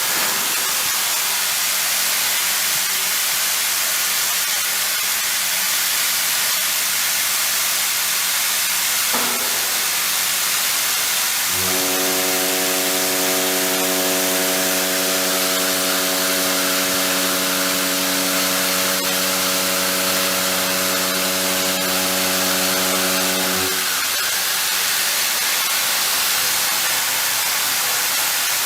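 Milling machine during heavy milling, with a loud, steady hiss throughout. From about 12 to 24 seconds in, a steady pitched hum joins it.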